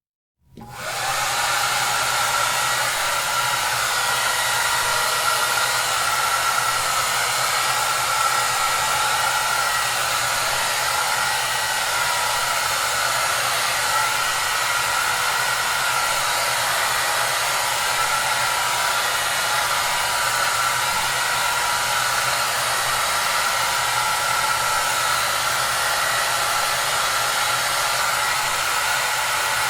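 Hair dryer running steadily with an even rushing blow and a faint whine in it. It cuts in abruptly about half a second in, after a brief silence.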